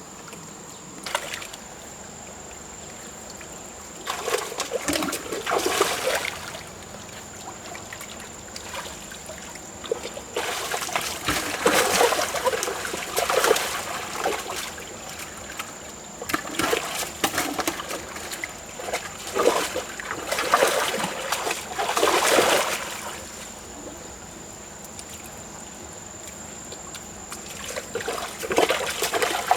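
Water splashing in shallow water, in irregular bouts of a few seconds each with quieter gaps between.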